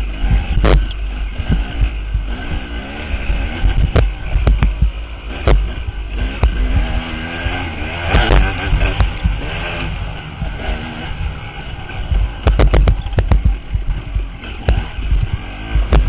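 KTM dirt bike's engine revving up and down as it is ridden hard over rough ground, with sharp knocks and clatter from the bike hitting bumps. A heavy low wind rumble on the microphone runs under it.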